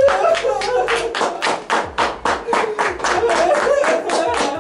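Fast, steady hand clapping, about six claps a second, with a wavering voice sounding over it.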